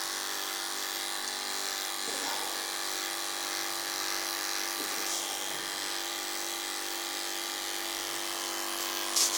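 Electric dog grooming clipper running with a steady hum as it is worked through a schnauzer's coat. A short sharp click near the end.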